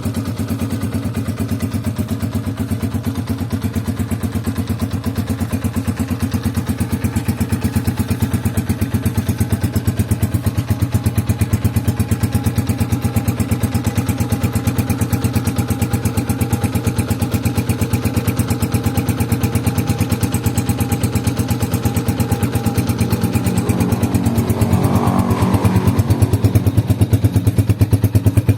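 Honda TMX 125 Alpha's single-cylinder four-stroke engine idling steadily through an aftermarket Yutaka Contact Point 125 exhaust, with an even, regular exhaust pulse; it gets slightly louder for the last few seconds.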